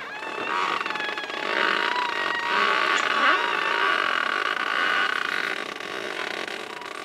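Sailboat winch hoisting the headsail halyard under load: a steady mechanical whine that starts about half a second in, dips briefly near the middle and stops about six seconds in.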